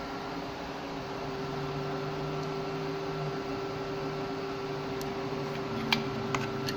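Steady fan-like hum of workbench equipment running, with a few sharp light clicks near the end.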